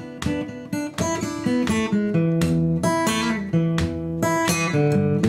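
Instrumental theme music played on acoustic guitar: strummed chords and picked notes at an easy, even pace.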